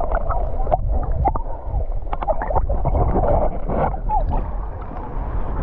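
Muffled underwater sound of a camera held under shallow seawater: a steady low rumble of moving water with bubbling and many sharp little clicks.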